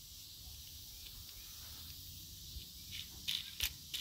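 Faint steady chirring of insects, and from about three seconds in a few small metallic clicks of a flat washer and wing nut being fitted onto a threaded steel J-bolt.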